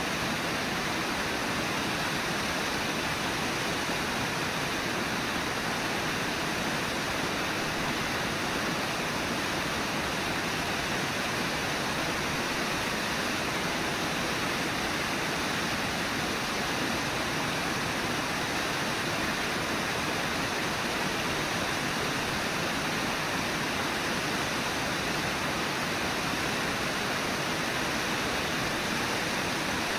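Steady rush of the Brooks River pouring over Brooks Falls: an even, unbroken roar of falling and flowing water, with no other sounds standing out.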